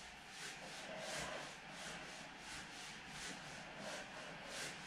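Faint rhythmic swishing, about three strokes a second, of legs, arms and clothing brushing over an exercise mat as the legs open and close and the arms bend and stretch overhead.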